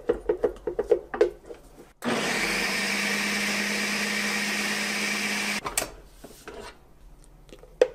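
Quick scraping taps inside the plastic pitcher, then the 1400-watt motor of a Ninja Smart Screen Duo blender runs steadily for about three and a half seconds, blending thick hummus. It stops abruptly, followed by a few light clicks as the pitcher is handled.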